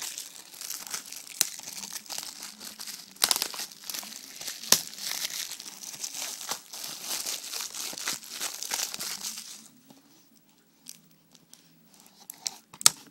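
Plastic shrink-wrap being torn and crumpled off a DVD case: dense crinkling and tearing with sharp crackles for about ten seconds, then only a few scattered clicks and one louder click near the end.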